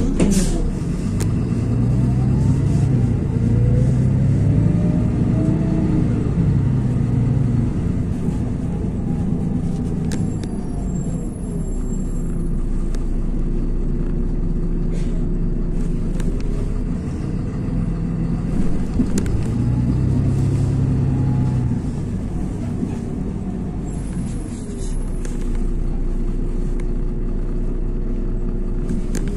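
LiAZ 6213.22 articulated bus running, its engine and drivetrain droning. Twice the drone swells as the bus pulls away, with a whine that rises and then falls to settle on a steady tone.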